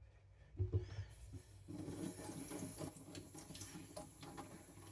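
A low knock about half a second in, then water trickling and splashing, as when water is added to a whetstone or a blade is rinsed.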